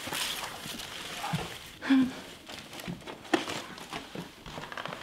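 Wrapping paper rustling and crinkling in irregular little crackles as a gift-wrapped present is handled, with one brief louder sound about two seconds in.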